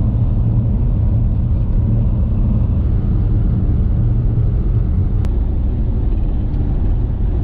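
Steady low rumble of a marshrutka minibus on the road, engine and tyre noise heard from inside the passenger cabin, with one small click about five seconds in.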